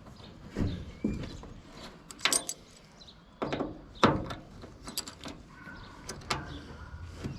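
Scattered clicks and knocks of a pickup's tail light assembly and hand tools being handled while it is fitted and screwed back in. There are about half a dozen sharp strikes, with a quick double knock a little over two seconds in and the loudest knock about four seconds in.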